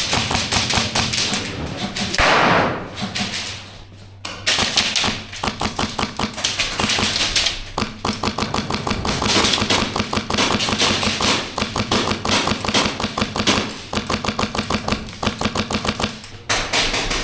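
Airsoft rifle firing long full-auto strings of rapid shots to suppress an opponent's position. A short rushing noise about two seconds in is followed by a brief lull before the firing resumes around four seconds in.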